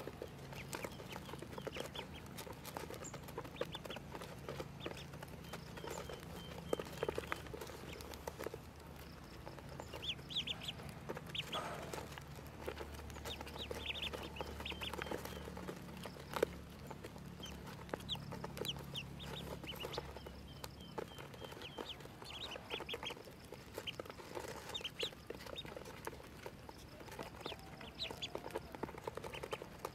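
A brood of ducklings peeping: many short, high chirps in quick runs that keep overlapping.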